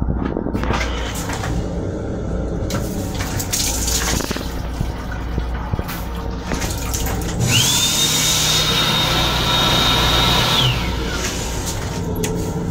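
Water running from the sink faucet of a Metro-North M7 railcar restroom, with a steady low rumble and scattered clicks. About seven seconds in, a motor whines up to a high steady pitch, holds for about three seconds, then winds down.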